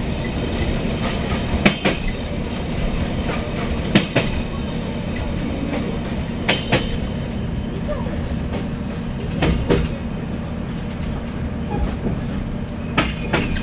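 Siemens Desiro diesel multiple unit's bogies running over jointed track under a steady low rumble, heard from inside the carriage. The wheels clack over rail joints in quick pairs about every two and a half seconds, five times.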